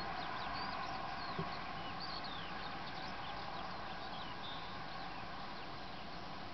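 A grazing flock of brent geese giving a steady low murmuring chatter, with many quick high chirps from small birds over it. There is a single soft knock about a second and a half in.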